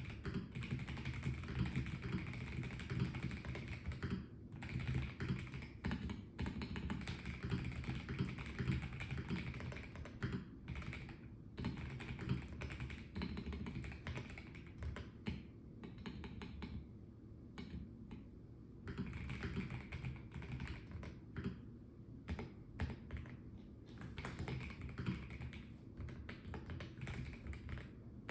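Typing on a Melgeek Mojo84 plastic mechanical keyboard: quick runs of keystrokes in bursts, with short pauses between them.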